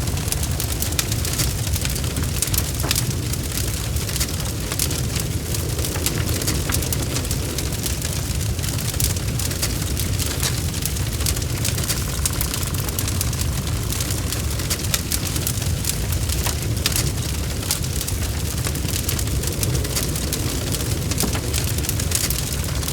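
Wood fire crackling in a fireplace: many quick sharp pops and snaps over a steady low rumble of the flames.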